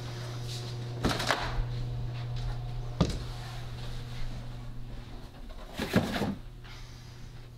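A few sharp knocks and thumps indoors: a short cluster about a second in, a single sharp one about three seconds in, and another cluster about six seconds in, over a steady low hum.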